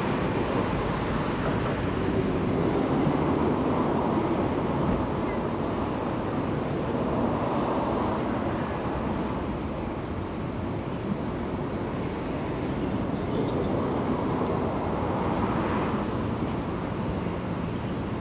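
Steady roar of road traffic on a busy street, swelling and easing slowly as vehicles pass, with wind buffeting the microphone.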